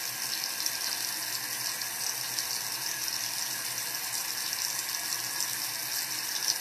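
Water running steadily from a tap into a bathroom sink, a constant even hiss.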